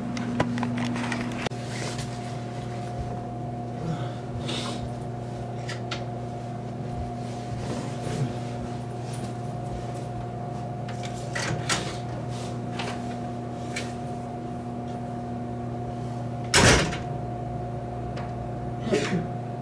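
Hotel room door shutting with one loud bang about 17 seconds in, then handled again with a few knocks and clicks near the end, over a steady low hum and scattered small clicks.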